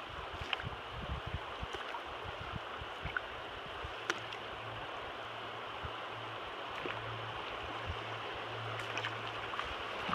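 Steady rush of river water running over small rapids, heard from a kayak on the water, with a few faint clicks scattered through it.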